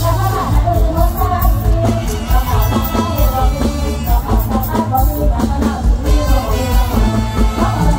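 Live mor lam band music played loud through a PA, with a singer's voice over a heavy, pulsing bass beat.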